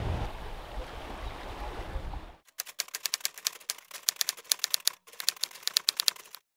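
Wind on the microphone and sea noise aboard a sailboat under way, cut off sharply about two and a half seconds in. Then a typing sound effect follows: rapid key clicks in three runs with short breaks, stopping shortly before the end.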